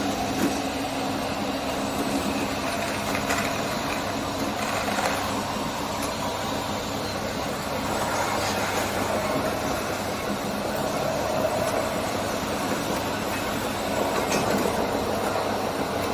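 RC scale construction vehicles running, giving a steady mechanical running noise with a faint low hum throughout.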